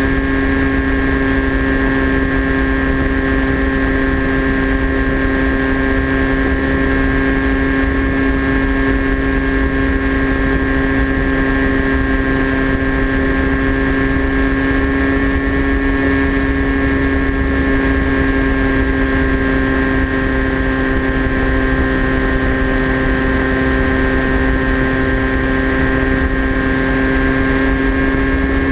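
Electric motor and propeller of a TBS Caipirinha FPV flying wing, recorded onboard, running at a steady cruising throttle. It is a steady whine whose pitch barely changes, over a low rumble of wind buffeting the camera.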